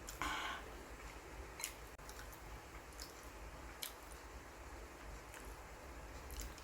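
A person eating with mouth sounds: a short noisy burst just after the start, then a few separate sharp clicks from chewing and biting.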